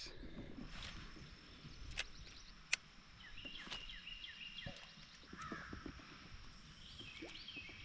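Wild birds calling and singing against faint outdoor ambience, with two sharp clicks a little under a second apart about two seconds in.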